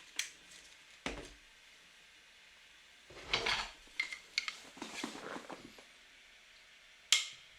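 Handling noises: scattered light knocks and clicks of hard objects, a few single ones and then a busier cluster in the middle.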